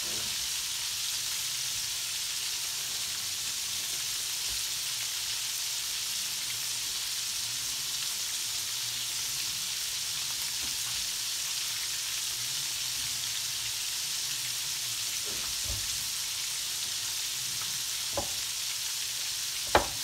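Breaded chicken gizzards frying in hot oil in a cast-iron skillet: a steady, even sizzle, with a couple of sharp clicks near the end.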